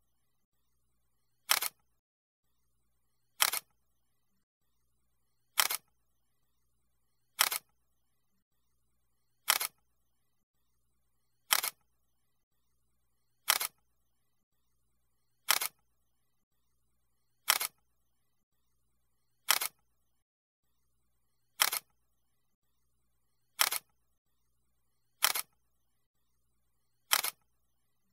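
Camera shutter click sound effect, repeated about every two seconds, with near silence between clicks.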